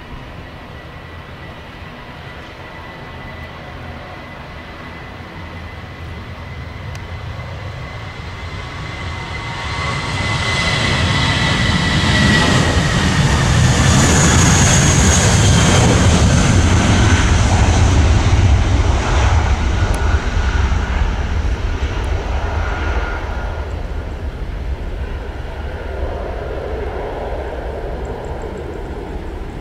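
Airbus A320-232 jet airliner with IAE V2500 engines at takeoff power. A steady fan whine drops in pitch as it passes about twelve seconds in. The engine roar is loudest for the next several seconds, then slowly fades as the jet climbs away.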